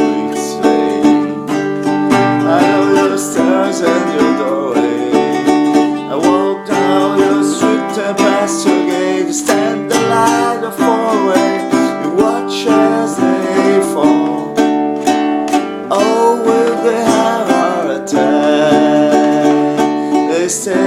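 Instrumental break in a song: a plucked-string instrument playing chords, with a melody line gliding over them.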